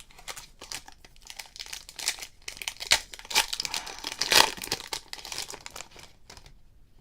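Foil card pack wrapper being torn open and crumpled by hand, a run of crinkling and crackling that peaks a little past the middle and dies away near the end.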